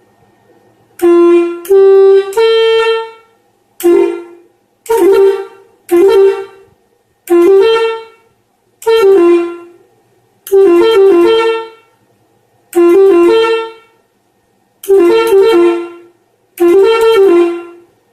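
Telolet air horns, driven by an electronic telolet module, playing about eleven short melodies in turn. Each is a loud run of two to four notes lasting about a second, with brief pauses between them. The first is a slower rising three-note tune.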